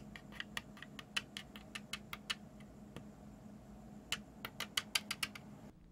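Metal pins of a small DIP integrated-circuit chip tapping on a paper-covered surface as fingers walk it along: a run of light, irregular clicks, coming faster near the end.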